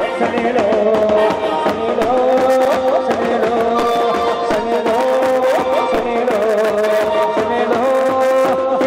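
Instrumental Indian music: a sustained melody line that steps between long held notes, over steady hand-drum strokes.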